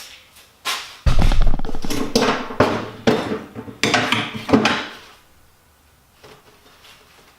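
Tools and small metal parts clattering and knocking while someone rummages through them, with a heavy bump about a second in and the clatter dying away near five seconds.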